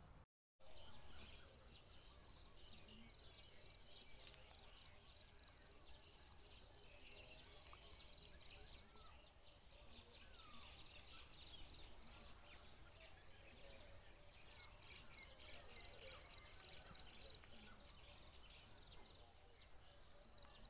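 Near silence: faint field ambience with a thin, steady insect trill and a few faint bird chirps.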